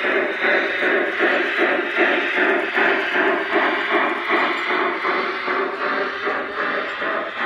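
Large-scale model steam locomotive running, its chuffing exhaust beating steadily about three times a second.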